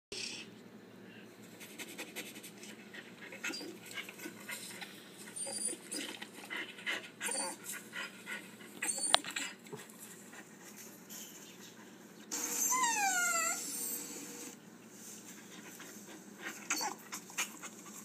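Recorded dog sound effects played through a laptop speaker: scattered short dog noises, then about twelve seconds in a high whine that falls in pitch.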